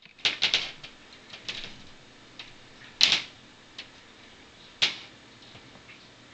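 Irregular sharp clicks and taps: a quick cluster at the start, then single louder ones about three and five seconds in.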